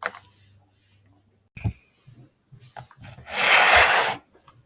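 A fleece sleeve and arm brushing across the tabletop close to the microphone: a loud rustling scrape lasting about a second, near the end, after a single light knock on the table.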